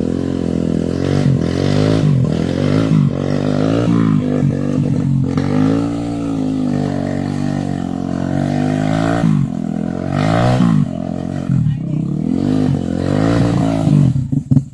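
Trail motorcycle engine running, its pitch rising and falling again and again as the throttle is opened and closed.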